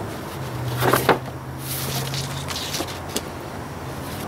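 Large paper sheets rustling and crinkling as they are lifted and handled on a wooden bench, with a few sharp knocks about a second in and light clicks later. A steady low engine hum runs underneath.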